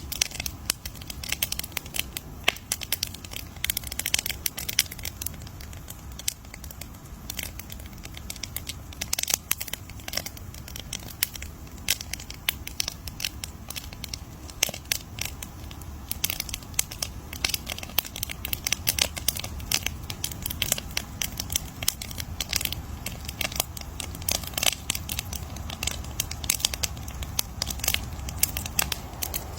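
Wood campfire crackling: a dense, irregular stream of sharp pops and snaps over a low, steady rumble of burning.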